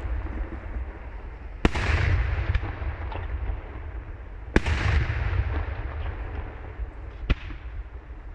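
Daytime fireworks shells detonating in the air: three sharp bangs about three seconds apart, each followed by a long rolling echo, with a few smaller pops between them over a steady low rumble.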